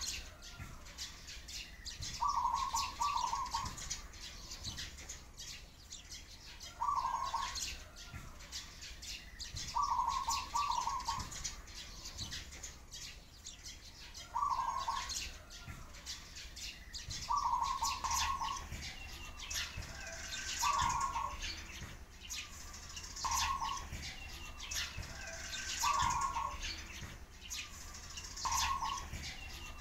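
A dove cooing over and over, each coo a short phrase of two or three quick notes, about every three seconds. Sparrows chirp steadily underneath.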